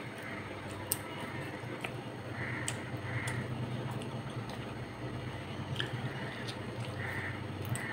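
Eating sounds: fingers mixing rice and fish curry on a steel plate, then chewing, with scattered small clicks and soft squishy noises over a steady low background hum.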